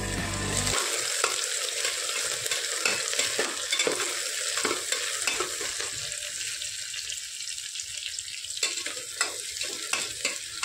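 Sliced onions frying in hot mustard oil in an open aluminium pressure cooker, sizzling steadily, with a metal ladle stirring and knocking against the pot in short irregular clicks.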